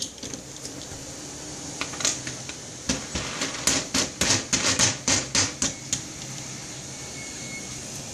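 Plastic dent-puller bridge and its star knob being handled and turned over a glue tab on a car body panel: a run of about a dozen sharp clicks and taps, about three a second around the middle.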